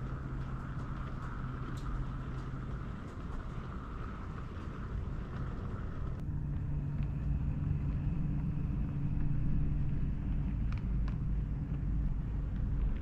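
Model diesel locomotive running on a model railway: a steady engine hum with the rumble of wheels on track and a few faint clicks. The sound changes abruptly about six seconds in.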